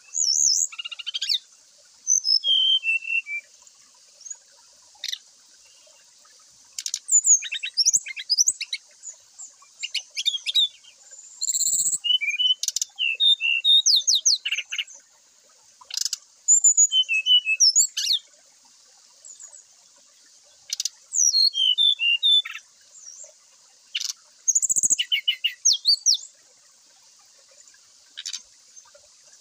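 Brown-chested jungle flycatcher (sikatan rimba dada coklat) singing in repeated short phrases of quick, high chirping notes with pauses between them, some phrases falling in pitch.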